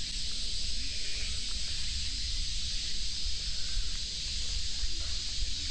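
Steady high hiss of a summer cicada chorus, with a low fluctuating rumble of wind on the microphone beneath it.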